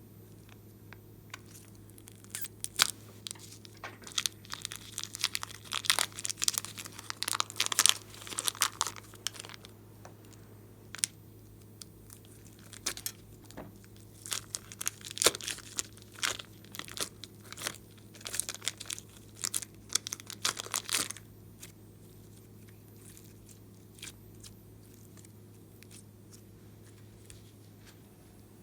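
Glossy slime being worked by hand, with sticky crackles, clicks and tearing sounds in two dense spells. The slime goes quiet about two-thirds of the way through, leaving only a steady low hum.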